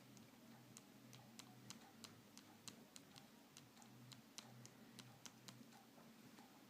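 Faint run of light, irregularly spaced clicks, about three a second, from taps on the Xinhua mobile phone as it is operated, over a low steady electrical hum.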